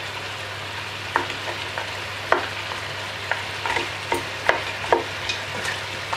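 Seasoned oxtail sizzling in a stainless steel pot while being stirred with a spoon. Irregular knocks and scrapes of the spoon against the pot come from about a second in, closer together in the second half.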